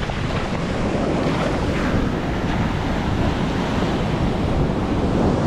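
Ocean surf washing onto a beach, with wind buffeting the microphone in a steady low rumble.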